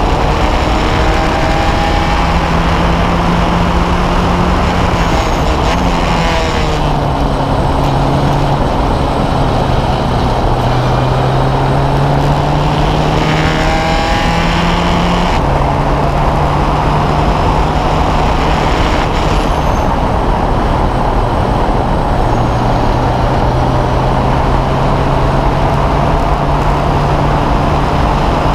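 Formula race car engine at racing speed, heard from on board, its pitch rising and falling through the gears. Two clusters of quick rev changes come about a quarter and about half way through, as the car downshifts for corners. Wind and road noise run underneath.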